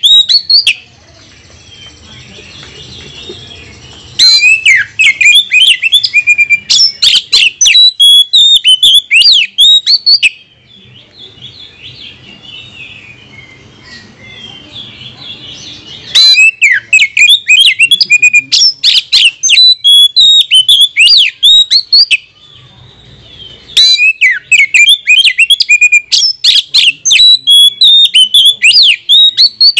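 Oriental magpie-robin (kacer) singing loudly in long phrases of rapid, varied whistles and chirps. A short phrase opens, then three phrases of about six seconds each start about 4, 16 and 24 seconds in, with softer twittering in the pauses between.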